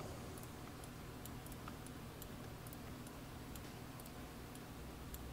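Faint, irregular clicking of a computer mouse's buttons and scroll wheel while a 3D model is rotated and zoomed on screen, over a low steady hum.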